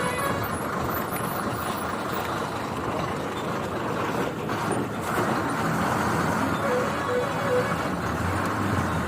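Steady vehicle running noise of a lorry on the move: engine and road noise with no sharp events.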